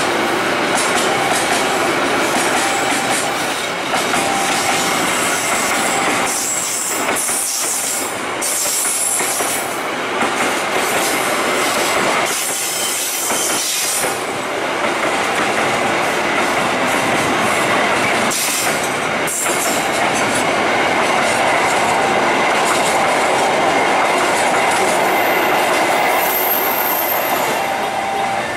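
Container freight train's flatcars rolling past close by: a steady rumble and rattle of steel wheels over the rails, with high metallic wheel squeal at times.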